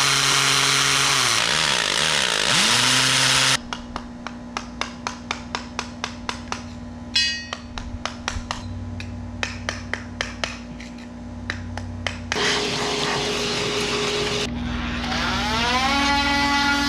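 Corded drill with a concrete bit boring pilot holes into a concrete slab for a threshold, its motor pitch dipping under load and picking back up. Then a long run of light hammer taps, several a second, and near the end a cordless drill running up with a rising pitch.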